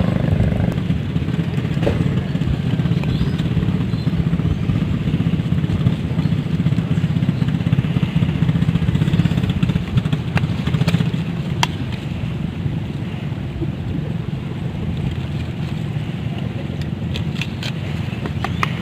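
A small engine running steadily at a low, even speed, with a few light clicks and taps near the end.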